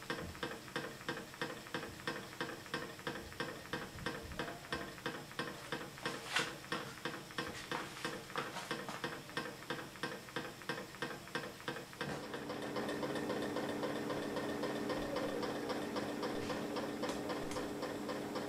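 MM-5 coffee-cup Stirling engine running on a mug of boiling water, its moving parts ticking steadily at about three ticks a second. About twelve seconds in the ticks grow softer and a steady hum comes in under them.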